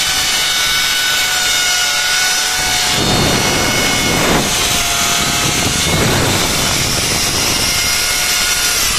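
Two electric drills, an iBell ID13-75 650 W hammer drill and an iBell ED06-91 400 W drill, running together with their motors whining steadily and boring 6 mm holes into a brick. From about three seconds in, a coarse grinding rattle joins the whine as the bits bite into the brick. The motors slow near the end.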